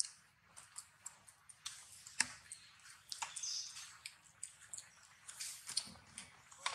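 Macaques eating and grooming close by: quiet, irregular small clicks and wet smacks, like chewing and lip-smacking.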